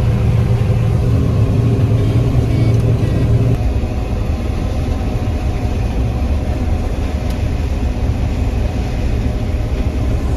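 Combine harvester running at working speed, a loud steady machine drone; about three and a half seconds in the deep hum drops back a little.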